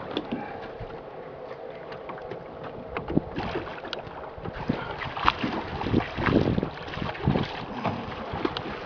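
Water splashing beside a small fishing boat in irregular bursts as a hooked tarpon is held at the side, with wind buffeting the microphone.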